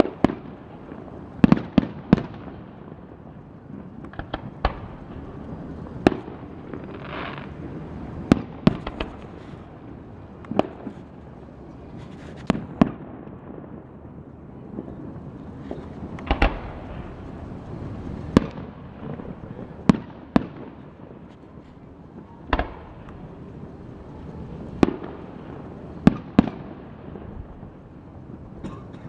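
Aerial fireworks shells bursting one after another in a display, a sharp bang every second or two.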